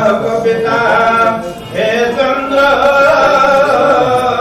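Male chanting of a devotional hymn, long held notes that bend slowly in pitch, with a brief break for breath about a second and a half in.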